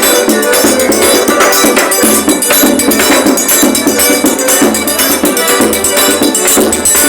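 Loud forró music played by a trio, with a steady percussion beat.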